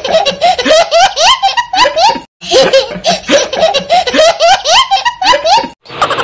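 A young child laughing hard in long runs of quick, rising hoots. The same stretch of laughter plays twice in a row, with a brief cut-out between the two, and it cuts off just before the end.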